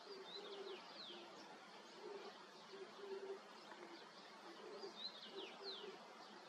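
A small bird calls twice, a short phrase of quick falling whistles each time, about four and a half seconds apart. Under it runs a faint low buzz that comes and goes.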